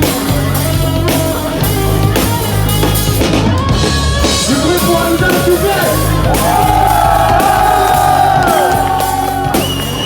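Live hard rock band playing, with electric guitars, bass guitar and drum kit, and a long held, wavering high note in the second half.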